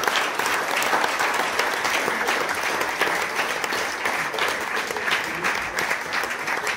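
Audience applauding, many people clapping steadily together.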